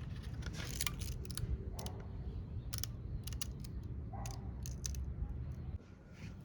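Strong wind buffeting the microphone in a steady low rumble, with scattered sharp clicks, as a kite is flown on a taut line; the rumble drops away sharply near the end.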